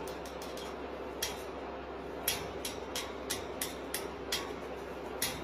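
A small caged parrot's beak making irregular sharp clicks, about nine over a few seconds, against a faint steady hum; the owner takes the bird to be angry.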